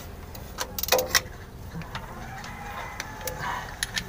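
Sharp metallic clicks from a 17 mm wrench being worked on an oil-filter fitting, a cluster of them about a second in and a few more near the end.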